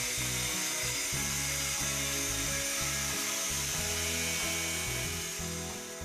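DeWalt angle grinder cutting the corners off a steel tab, a steady high hiss that fades near the end. It sits under background music with a stepping bass line.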